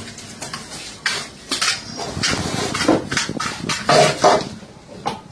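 A hanging metal scale pan and its chains clanking and rattling as whole kingfish (surmai) are dropped and shifted in it, a run of irregular knocks several times a second.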